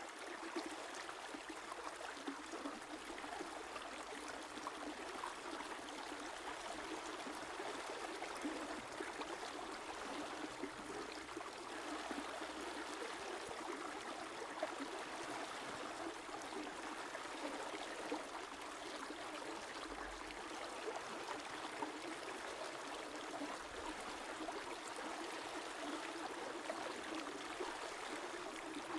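A river or stream running steadily over rocks, a continuous rushing and trickling of water with small splashes and gurgles.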